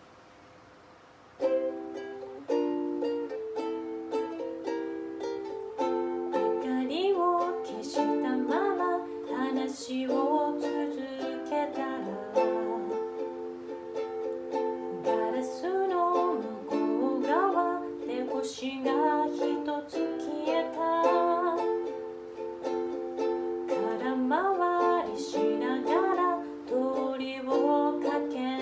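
Ukulele playing a song intro, chords with picked notes, starting about a second and a half in.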